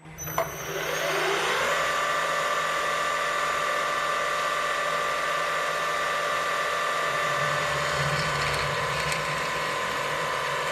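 A metalworking machine's motor switches on with a click, spins up over about a second and a half, then runs steadily with a whine.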